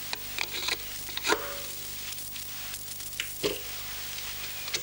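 Light plastic clicks and knocks from a cassette or magazine being handled and fitted into a small projector, the loudest about a second and a quarter in, over a steady hiss and mains hum.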